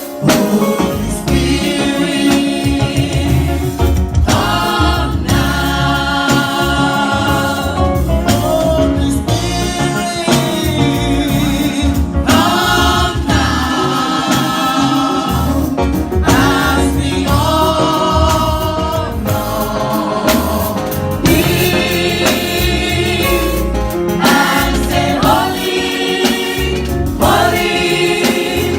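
Gospel choir singing with a loud, steady band accompaniment and a low beat.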